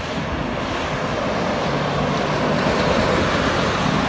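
Steady rush of highway traffic passing close by, with a truck's engine hum growing louder near the end.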